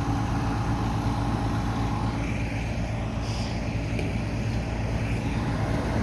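Truck engine idling steadily, a low even hum with faint road noise in the background.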